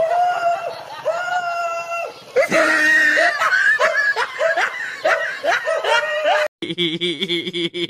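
High-pitched shrieking laughter: a few long held squeals, then a fast run of short rising 'ha' bursts, about two a second. It cuts off abruptly near the end.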